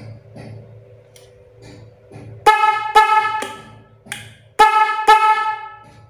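Termignoni 12 V snail horn sounding its low tone in short blasts: two quick honks, a pause, then two more.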